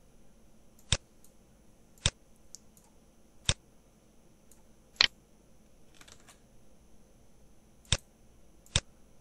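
Six sharp single clicks of computer input controls being pressed, spaced irregularly one to three seconds apart.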